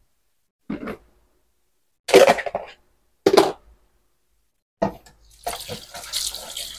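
A few short knocks and clatters as plastic containers are handled at a kitchen sink, then a kitchen tap running into the sink from about five seconds in.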